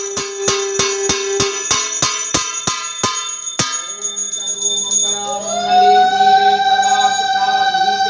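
Puja hand bell rung rapidly, about three to four ringing strokes a second, stopping about three and a half seconds in. Then a conch shell is blown in one long note that rises in pitch and is held.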